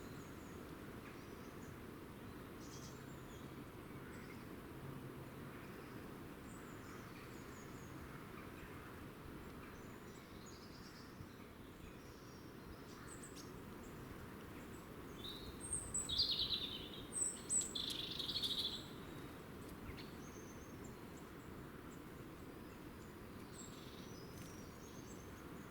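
Birds chirping and calling over a steady low background noise. The calls are short and high-pitched, with a louder run of calls a little past the middle.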